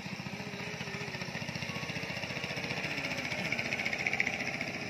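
A small engine running with a fast, steady beat, growing louder about four seconds in, then easing.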